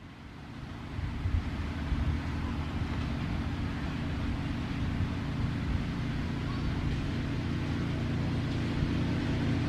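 Engine of a ridable miniature-railway diesel-outline locomotive in Western styling, running steadily as it hauls its passenger cars towards the listener. It has a constant low hum and swells over the first second or so.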